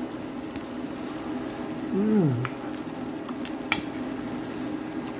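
Chopsticks working ramyeon noodles in a stainless pot over a steady background hiss, with a few light clicks of the sticks against the pot. About two seconds in, a man makes a short hummed sound that rises and falls.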